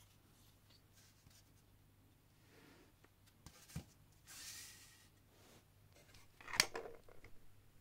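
Plastic Transformers Legacy Skullgrin figure in tank mode handled and set down on a textured mat: faint clicks and rubbing, a short scraping slide about four and a half seconds in, and a sharper knock about six and a half seconds in.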